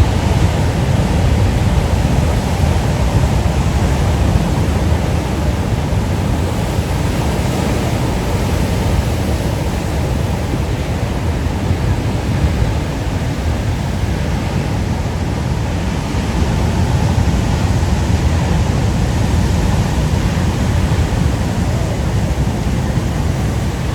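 Ocean surf as a steady, dense roar, with a strong low rumble under it and gentle rises and falls in level.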